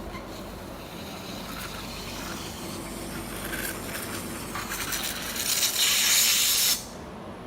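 Robotic welding: a hissing, crackly noise that slowly grows, then a loud hiss for about a second that cuts off abruptly near the end.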